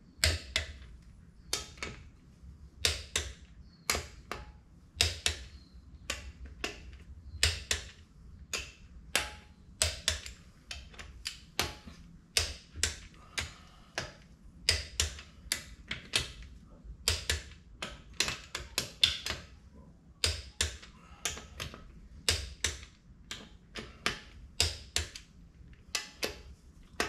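Ratcheting torque wrench clicking in short, irregular runs of sharp clicks as the front pump bolts of a TH350 automatic transmission are run down.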